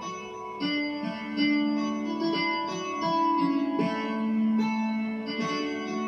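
Digital keyboard playing a homemade hammered dulcimer patch: a piano sample layered with a guitar sample under a chorus effect. It plays a melody of struck, ringing notes that overlap one another. The tuning is set slightly out, the way a real dulcimer that isn't perfectly in tune sounds.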